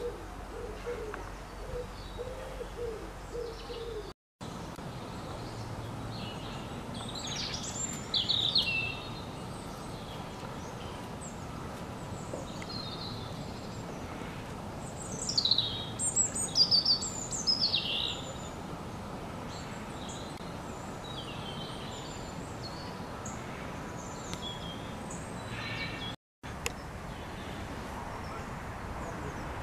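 Songbirds chirping over a steady outdoor background hiss. There are two louder runs of quick, falling chirps, about eight seconds in and again from about fifteen to eighteen seconds. The sound cuts out briefly twice.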